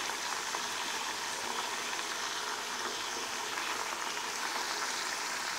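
Chopped brinjal, tomato, gongura and green chillies cooking in oil in a kadai: a steady, even sizzling hiss.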